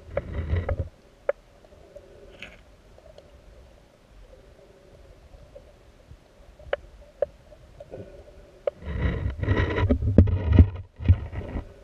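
Underwater river sound heard through a submerged camera: a faint steady hum with a few sharp clicks, then loud rumbling water turbulence from about nine seconds in.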